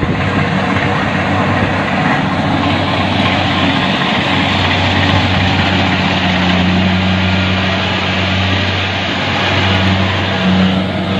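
An engine running steadily under a dense hiss, its hum swelling slightly about six seconds in and again near the end.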